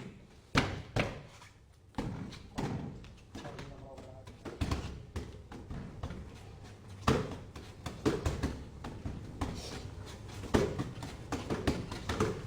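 Wing Chun strikes and blocks landing: sharp slaps and thuds at irregular intervals, the loudest about half a second and a second in and again around seven seconds in, with people talking between them.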